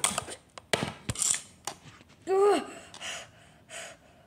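Small plastic toy figurines knocking and clattering against each other and a wooden floor as they are handled, a few sharp clicks and scuffs. About halfway there is one short pitched vocal cry that rises and falls.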